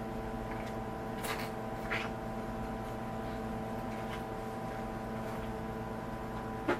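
Steady hum of shop equipment, with a few soft clicks or light scrapes about a second in, again at two seconds and once more near the end.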